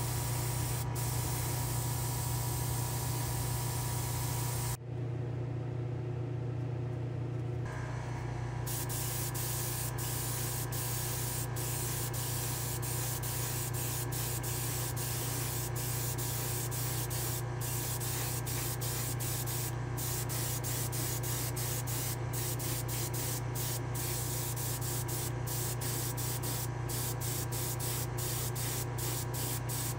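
Airbrush spraying paint with a steady hiss, broken by many brief stops of the trigger, over a steady low hum. About five seconds in, the hiss stops for some three seconds, leaving only the hum.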